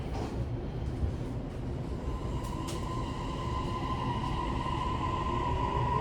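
Toei 6500-series train's Mitsubishi hybrid SiC VVVF inverter and three-phase induction traction motors as the train starts to pull away, heard inside the car. A steady high whine comes in about two seconds in, and a motor tone starts rising in pitch near the end under a low rumble, with a few sharp clicks.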